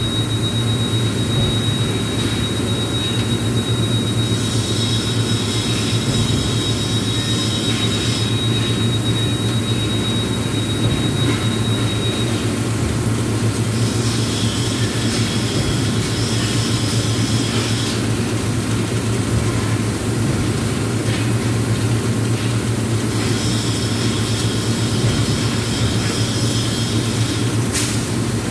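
Steady low machine drone of heavy industrial equipment, with a thin high whine for about the first twelve seconds and three stretches of hissing, each a few seconds long.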